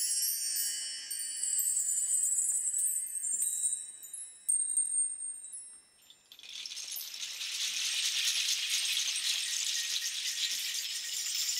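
A mark tree (bar chimes) swept once, its metal rods ringing in a shimmer of high tones that die away over about four seconds, with one bright strike about four and a half seconds in. From about six seconds, strings of hanging seed-pod and shell rattles are shaken in a dense, steady high rustle.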